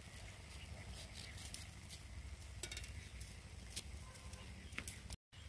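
A small kitchen knife slitting fresh green chillies by hand, giving a few faint, crisp clicks and snaps now and then over a low steady rumble. The sound cuts out for a moment near the end.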